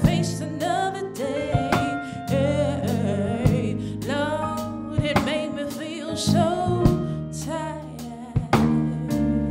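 A woman singing a soulful R&B/gospel-style melody live, with wavering vibrato and bending runs, backed by a drum kit and sustained low notes.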